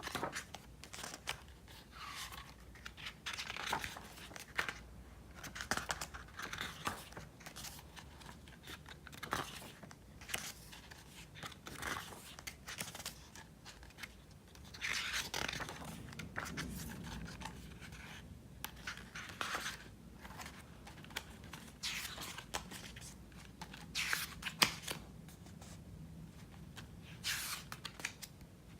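Pages of a thick album photo book being turned one after another: irregular paper swishes and flicks about every second or so, with light rustling between them.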